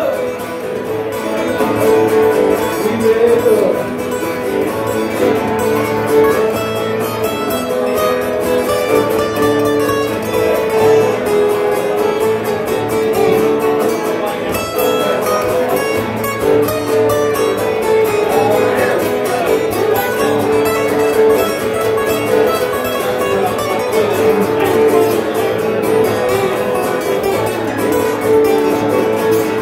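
Acoustic guitar played live, an instrumental break in a song with no singing.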